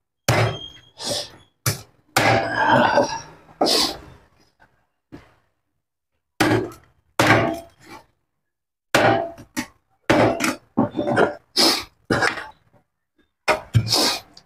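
Meat cleaver chopping a whole rooster into pieces on a wooden cutting board: sharp whacks of the blade through meat and bone, in irregular runs of strikes with two short pauses.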